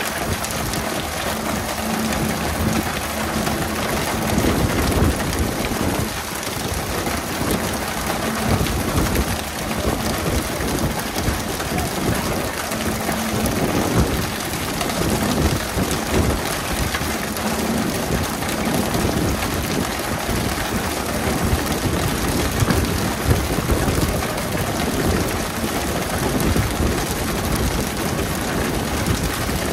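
Steady rain-like hiss of water spray pattering onto the sea from a pole-and-line tuna boat's sprayers, over a low steady hum, with a few brief louder knocks.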